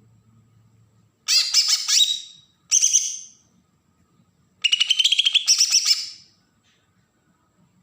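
Cucak ijo (greater green leafbird) giving its harsh, rapid 'besetan' call: three bursts of fast, high chattering notes, the last and longest about halfway through.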